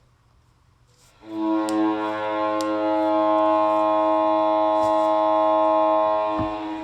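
Ice hockey arena goal horn sounding a single long, steady, chord-like blast. It starts abruptly about a second in.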